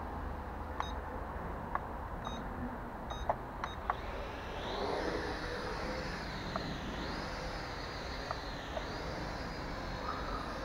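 Small racing quadcopter drone: a few short beeps and clicks, then about four seconds in its motors and propellers spin up into a soft high whine that rises and then wavers up and down as it lifts off and hovers.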